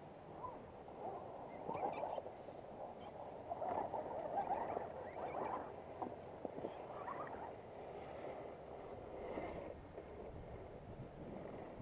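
Axial SCX10 radio-controlled rock crawlers' small electric motors and geared drivetrains whining in uneven bursts as they work their way up over rock.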